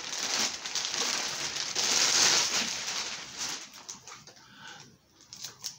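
Clear plastic packaging bag crinkling as it is handled and a plastic toy part is pulled out, dying down after about three seconds to a few light clicks.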